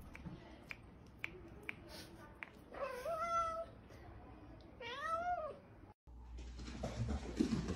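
A kitten meows twice, begging for a treat held above it: one call about three seconds in that rises and then holds, and a second, arching call about two seconds later.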